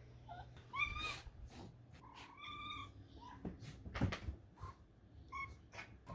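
Domestic cat making a series of short trills and meows, two of them longer and clearer, one about a second in and one around two and a half seconds in, with brief chirps between them: a cat begging for treats.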